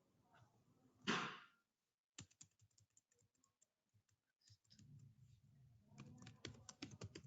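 Faint computer keyboard typing: a few scattered keystroke clicks from about two seconds in, coming thick and fast near the end. A brief puff of noise about a second in is the loudest sound.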